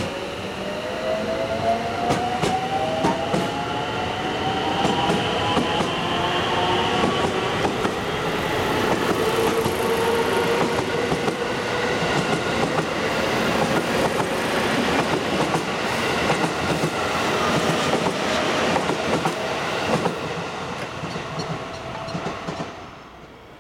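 A JR West electric multiple-unit train pulling away, its inverter-driven traction motors whining in several tones that rise together as it speeds up. Its wheels clack over the rail joints under a steady rumble, and the sound dies away near the end.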